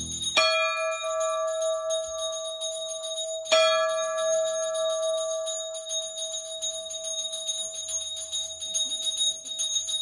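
A metal bell struck twice, about three seconds apart, each stroke ringing on for several seconds over a fast, steady jingling.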